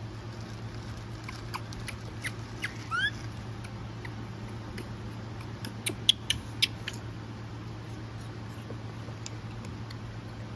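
Japanese macaques: scattered light clicks and taps in two clusters, with two short rising squeaks about three seconds in, over a steady low hum.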